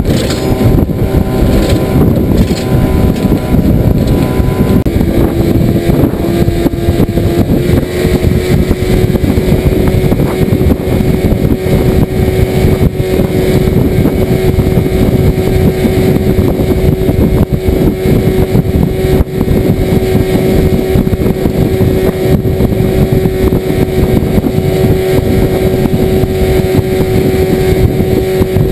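Outboard motor pushing a small boat at a steady cruising speed, its engine note holding one pitch throughout, with wind and water noise on the microphone.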